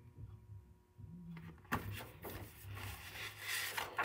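Faint rustling and a few soft knocks of handling over a low steady hum, nearly silent for the first second.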